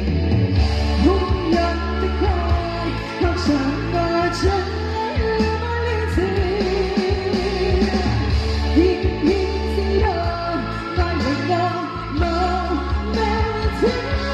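A woman singing a pop-rock song into a microphone through a loud PA, over backing music with a heavy bass line and steady drums.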